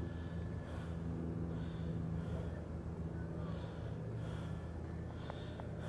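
A person breathing close to the microphone, soft hissy breaths coming about once a second, over a steady low hum.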